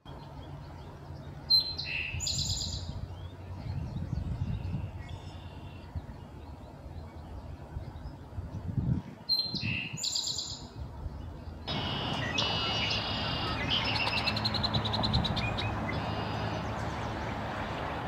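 Male Eastern towhee singing its 'drink-your-tea' song twice, about eight seconds apart: short opening notes followed by a trill. From about twelve seconds in, other songbirds sing over one another.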